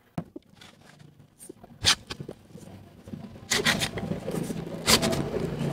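Telescopic extension pole being extended. A few light clicks are heard, and a sharper click about two seconds in. From about halfway through, the tube section slides out with a rubbing, scraping sound and a couple of sharp clicks.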